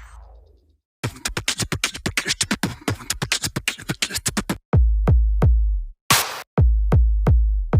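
Electronic background music with a drum-machine beat: it fades out, breaks off for about a second, then returns as a fast run of clicky hits, and from about halfway on heavy bass booms broken by short stops.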